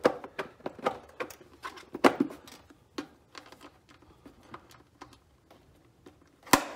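Plastic air cleaner cover being pressed back onto a generator engine: a series of light plastic clicks and knocks, the loudest about two seconds in, and a sharp snap near the end as its wire latch clips shut.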